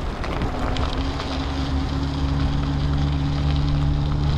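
Electric bike's motor humming steadily, its pitch rising slightly about half a second in, under the noise of wind on the microphone.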